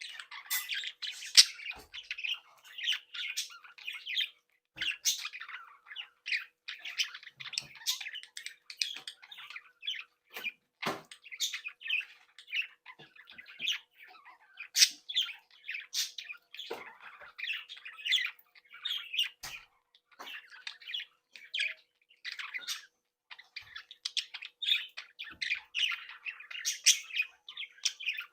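A group of budgerigars chattering: a dense, continual run of short chirps, squawks and warbles, with sharp clicks mixed in.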